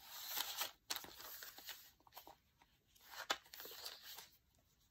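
Paper rustling as the pages of a handmade paper junk journal are handled and turned, in three short spells with a few light taps.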